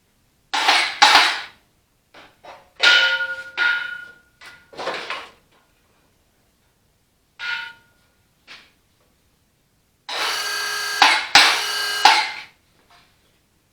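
Metal tools striking and clanking against steel tractor engine parts, some hits ringing briefly. About ten seconds in comes a steady rattling run of around two and a half seconds.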